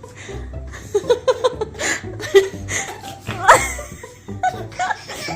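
Laughter: a run of short giggles and chuckles, with a sharp rising squeal about three and a half seconds in.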